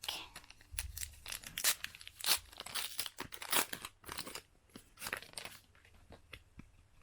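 Foil wrapper of a Panini Adrenalyn XL trading card pack being torn open and crinkled by hand: a quick run of sharp rips and crackles that thins out near the end.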